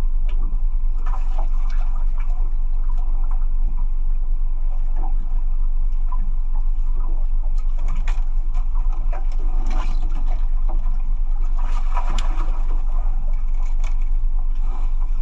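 A small boat's engine running steadily, with water splashing and sloshing around it.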